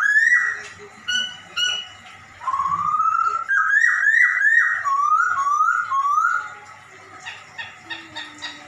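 Poksay Hongkong laughingthrush mimicking a cat's meow. It gives a rising mew, two short notes, a long rising glide, then a quick run of rising mews that grow fainter near the end.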